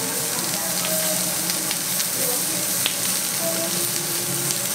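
Lamb slices sizzling on a hot ridged Hokkaido-style (jingisukan) grill pan: a steady frying hiss dotted with small pops and crackles of spitting fat.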